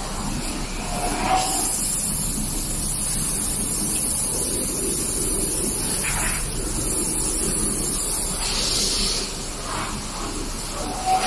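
Electric CNC panel bender running, a steady hiss with a low rumble as its manipulator feeds a steel sheet in under the clamp and bending blades. The hiss grows louder about three-quarters of the way through.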